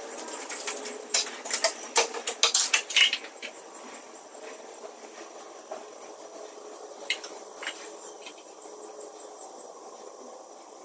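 Plastic handling noise: a dense run of clicks, crinkles and rustling for about the first three seconds as a respirator mask and a plastic bottle are handled. After that it goes quieter, with scattered small ticks over a faint steady hiss while battery acid is poured slowly through a plastic funnel into a lead-acid car battery.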